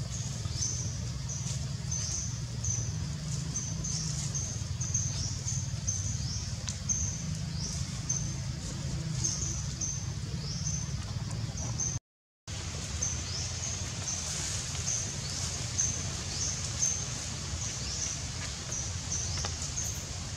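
Outdoor ambience of rapid, high-pitched chirps, about two a second and some sliding quickly downward, over a steady low hum. The sound cuts out completely for about half a second around twelve seconds in.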